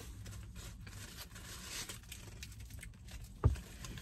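Foil and paper sandwich wrapper rustling and crinkling as it is unwrapped by hand. A single low thump about three and a half seconds in is the loudest sound.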